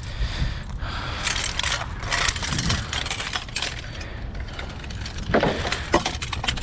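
Scrap metal and debris being handled by hand: crunching and rustling with light metal clinks, and a couple of sharper knocks near the end.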